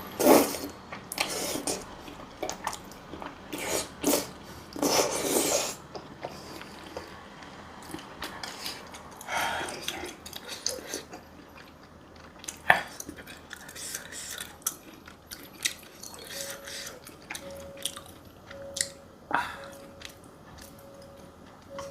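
Close-miked eating sounds of a mukbang: biting and chewing food, with a few sharp clicks. Near the end a faint short beep repeats evenly, about one and a half times a second.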